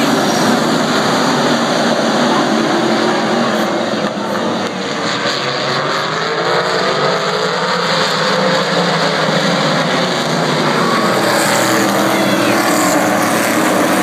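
A pack of winged sprint cars racing, many engines loud and revving with rising and falling pitch as they pass. The sound eases a little around four seconds in as the field heads to the far turn, then builds again as the cars come back past near the end.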